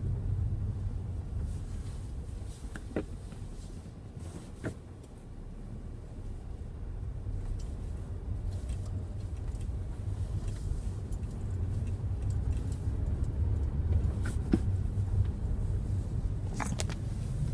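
Hyundai Creta 4WD on the move: a steady low rumble of engine and road noise that eases off about five seconds in and then builds again. A few brief sharp clicks or chirps sound over it.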